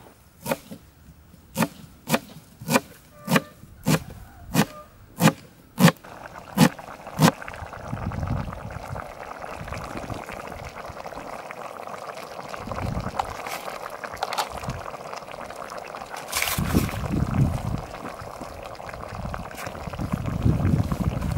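A knife chopping a bunch of leafy greens on a cutting board, about a dozen sharp chops over roughly seven seconds. Then chicken curry simmering steadily in a pan on a portable gas burner, with a few low rumbles.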